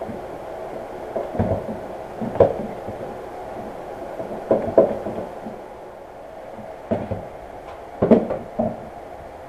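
Plastic Irwin Quick-Grip bar clamps being handled and squeezed down on a wooden belt-loop press form: scattered clicks and knocks in small clusters, over a steady hum.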